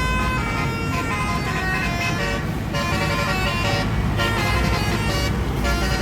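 Telolet bus horn: a multi-tone horn playing a quick tune of shifting notes, over the steady low rumble of the bus's engine.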